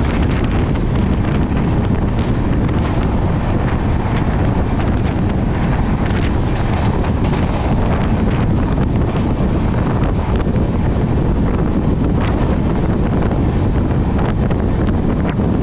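Loud, steady rush of wind buffeting the microphone at an open coach doorway, over the running noise of an express train moving at speed, with occasional faint clicks.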